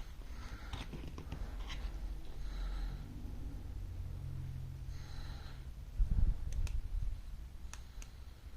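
Handling sounds with breathing through the nose: soft breaths, a low bump about six seconds in, then a few light clicks.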